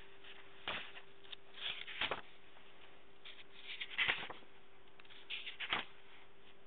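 Paper pages of a notebook being handled and turned: a string of short rustles and scrapes, the loudest about four seconds in, over a steady faint hum.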